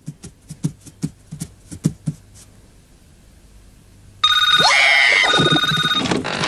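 Cartoon sound effects. For about two seconds there are light taps, about five a second. After a short pause, a loud electronic ringing tone starts suddenly about four seconds in and keeps going, with a brief wavering sound over it just after it begins.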